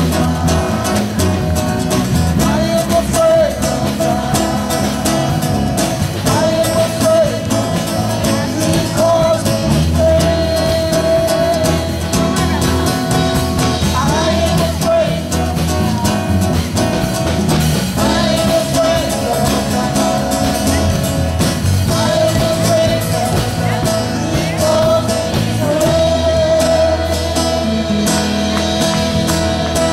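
Worship song played through a PA speaker: a woman singing long held notes into a microphone over instrumental accompaniment with a strong bass line.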